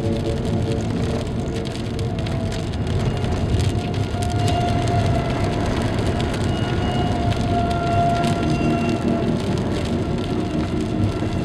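Steady hiss of rain with scattered drop clicks, under soft background music of long held notes.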